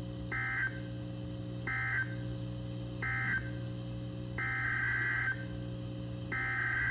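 Weather-radio SAME digital data bursts, a harsh warbling screech. Three short end-of-message bursts close out one warning, then two longer header bursts begin the next alert. A steady low electrical hum runs underneath.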